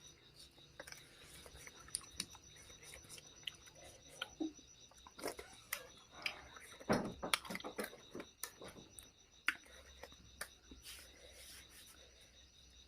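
A person eating: chewing with scattered light clicks and taps. The taps are busiest about halfway through.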